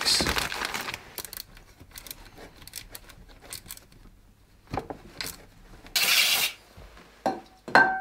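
Plastic packaging rustling, then scattered light clicks and knocks of parts and tools being handled. There is a short hiss about six seconds in, and near the end a sharp metal clink that rings briefly.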